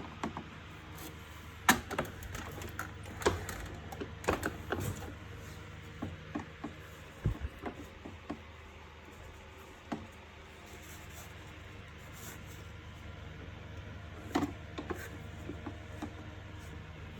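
Plastic parts of a wet & dry vacuum cleaner being handled and fitted together by hand: irregular clicks and knocks, a few sharper ones, over a steady low hum.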